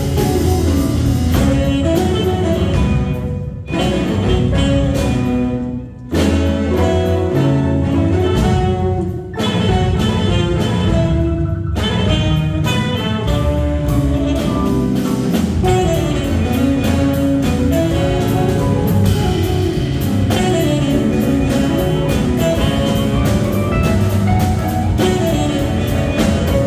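Small jazz combo playing a tune live, with melody lines over bass and drum kit. The band drops out briefly about four and six seconds in.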